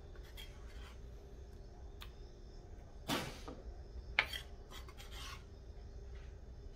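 Kitchen knife cutting and scraping pineapple on a wooden cutting board, with the cut scraps being gathered by hand: quiet rasping and rubbing, with two sharper scrapes about three and four seconds in.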